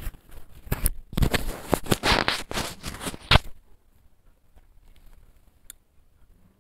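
Metal spatula scraping and stirring whole spices (cumin seeds, bay leaf, cloves, cardamom) frying in hot oil in a stainless steel pan, with light sizzling. The stirring stops about three and a half seconds in, leaving only a few faint ticks.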